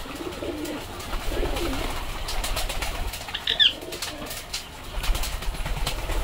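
A flock of domestic pigeons cooing, low wavering calls overlapping throughout, with scattered light clicks and one brief high squeak about three and a half seconds in.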